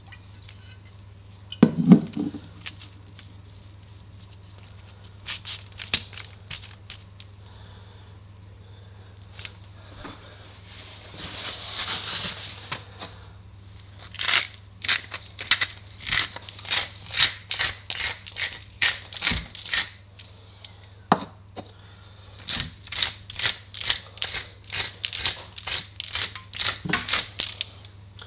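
A pepper mill grinding black pepper, twisted in quick strokes: an even rhythmic grinding of about two to three strokes a second, in two long spells with a short pause between. About two seconds in there is a single loud knock.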